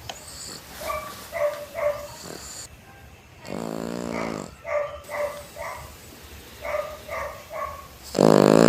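A Shih Tzu snoring in its sleep: two long, fluttering snores, the second and louder one near the end, with groups of short, higher squeaky breaths between them.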